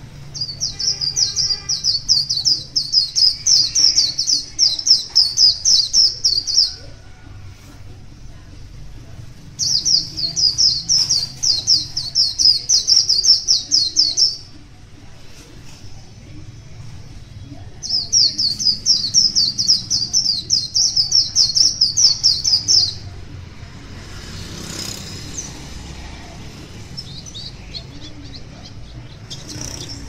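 White-eyes (Zosterops) singing in three long bouts of rapid, high twittering, each about five seconds, with a few softer chirps near the end.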